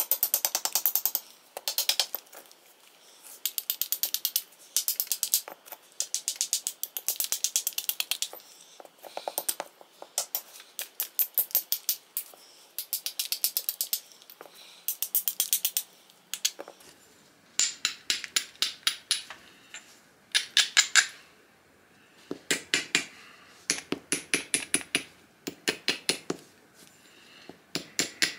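Hammer stone striking the edge of a basalt flake in quick, light taps: runs of sharp stone-on-stone clicks, a second or two each, with short pauses between.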